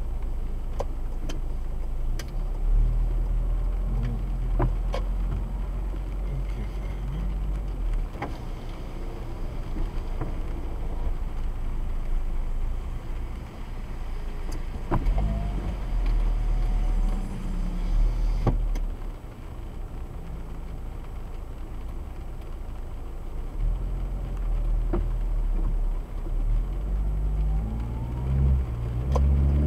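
Car engine and road noise heard from inside the cabin, a deep rumble that swells as the car pulls away and speeds up several times on the wet road. Scattered sharp clicks run over it.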